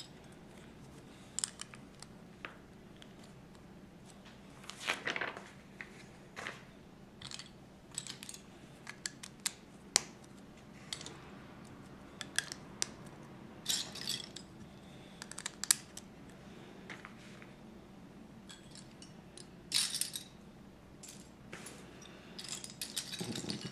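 Plastic Lego bricks and plates clicking and clattering as pieces are picked from a loose pile and pressed together. Scattered sharp clicks come in short clusters, with quiet gaps between.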